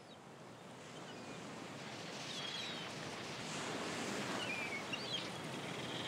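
Ambient seashore soundscape gradually growing louder: a steady wash of surf with a few short, high bird calls.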